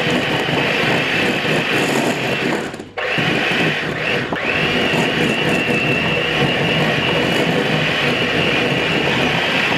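Electric hand mixer running with its beaters in a glass bowl, creaming butter. It cuts out briefly about three seconds in, then runs steadily again.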